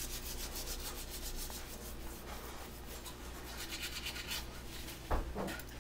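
Manual toothbrush scrubbing teeth in rapid back-and-forth strokes, with one short louder knock about five seconds in.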